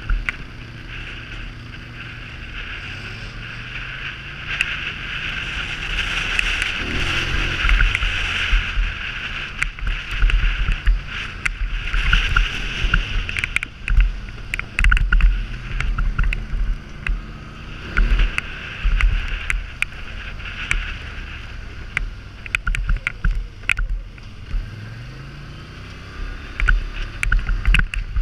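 Polaris Sportsman 850 ATV's engine running on the move, its pitch rising and falling as the throttle is worked. Wind buffets the helmet-mounted microphone, and gravel and bumps on the rocky trail make frequent sharp knocks and rattles.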